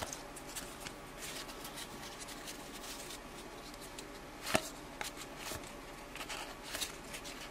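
1992-93 Topps Stadium Club basketball cards handled and slid against one another: soft rustling and light clicks, with one sharper tap about halfway through.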